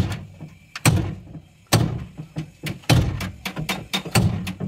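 Hammer driving a cold chisel into the torn, accident-damaged sheet steel of a Hino truck cab: about ten sharp metal-on-metal blows at an uneven pace, roughly two a second.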